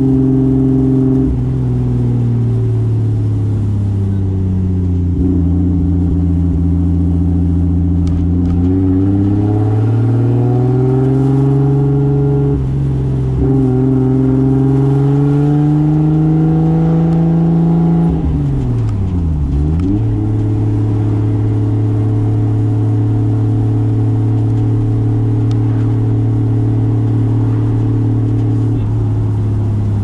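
Toyota Soarer's turbocharged 2JZ straight-six engine running under way at moderate revs, its pitch falling and climbing gradually with the throttle. About two-thirds of the way in the revs dip and then rise sharply, and after that the engine holds a steady cruise.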